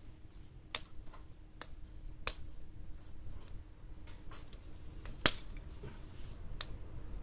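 Firewood burning in a fire pit, crackling with irregular sharp pops, the loudest about five seconds in.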